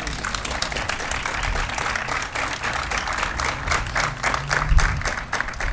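A small seated audience applauding, many hands clapping densely and irregularly.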